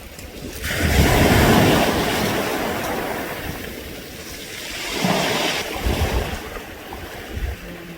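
Waves washing up a beach of round pebbles, the stones rattling as the water surges and draws back. Two surges, one about a second in that slowly fades and another about five seconds in.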